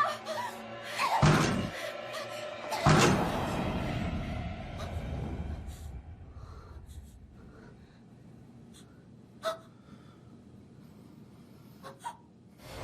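Horror film soundtrack: music with two heavy hits, about a second in and again near three seconds, each fading out slowly, then a long quiet stretch broken by a few faint clicks.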